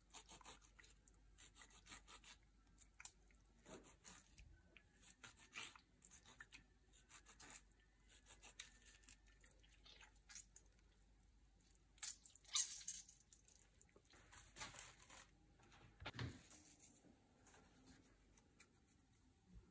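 Faint, scattered handling sounds of food: light scrapes, taps and rustles, a little louder about twelve and sixteen seconds in.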